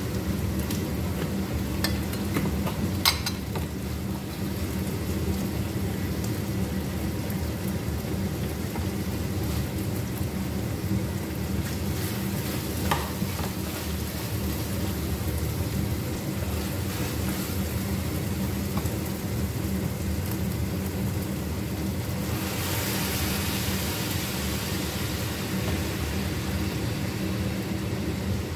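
Food frying in a pan on a gas stove, a steady sizzle over a constant low hum, with a couple of light clicks; the sizzle turns louder and brighter about three-quarters of the way through.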